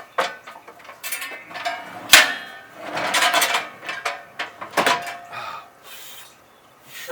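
Irregular knocks and clattering of objects being handled, with one sharp bang about two seconds in.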